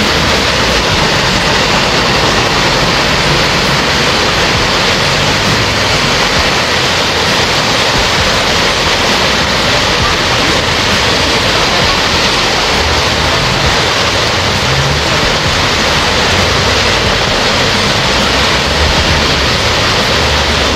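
Floodwater rushing and churning along a flooded street in heavy rain, a loud, unbroken rush.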